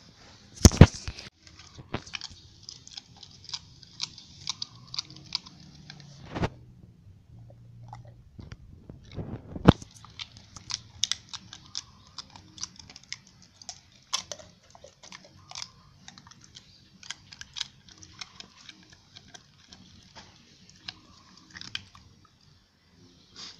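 A dog chewing and gnawing, with irregular sharp crunches and clicks; two louder crunches, one about a second in and one near ten seconds, and a short lull around seven seconds.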